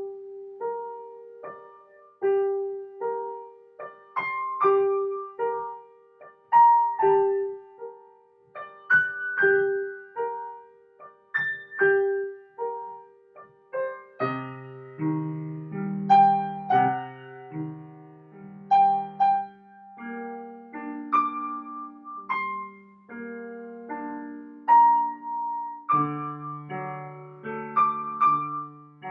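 Improvised solo on a keyboard: a single note repeated over and over under a sparse melody, with lower bass notes and chords coming in about halfway through.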